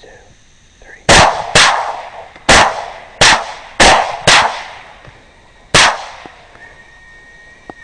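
Seven rifle shots in quick, uneven succession over about five seconds, each ringing out with a short echoing tail, as hogs are shot at. Near the end a long, steady, high squeal begins.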